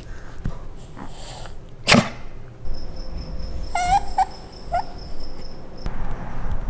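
A small dog whining in short, high, rising cries, three of them between about four and five seconds in. A single loud sharp noise comes about two seconds in.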